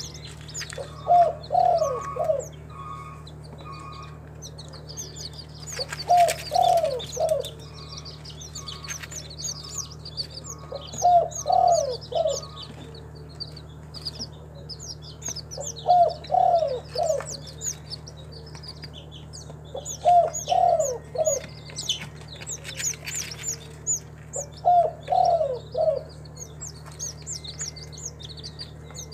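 Spotted dove (Spilopelia chinensis) cooing: six short phrases of a few notes each, repeated about every five seconds. Small birds chirp high and thin throughout, over a steady low hum.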